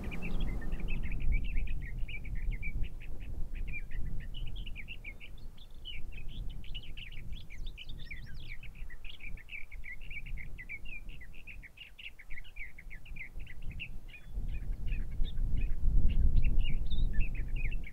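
Many birds chirping in a dense, continuous chorus of short, quick notes, over a low rumbling noise that grows louder near the end.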